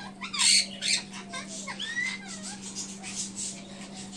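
Parrotlets chirping and squawking in quick, sharp calls, loudest in a burst about half a second in, then softer twittering with a few short gliding chirps.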